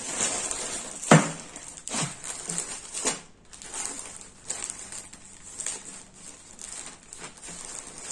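Plastic packaging bag rustling and crinkling as it is handled and opened, with a sharp knock about a second in and smaller clicks and rustles after it.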